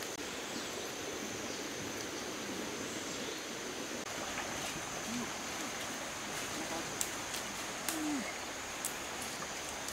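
Steady rush of a flowing river, with a few faint clicks about seven and eight seconds in.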